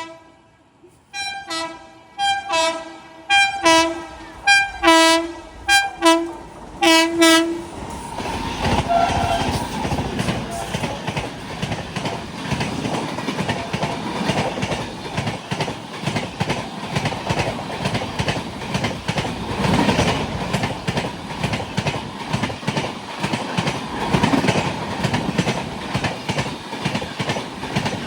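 Twin WAG-9 electric locomotives sounding their air horn in a rapid series of about eight short blasts, the last one longer. The express train then passes, a loud steady rush with the clatter of wheels over rail joints.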